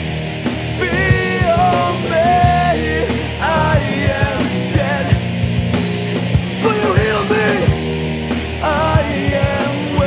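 Rock band music in an instrumental passage: a lead melody with pitch bends over steady drums and bass.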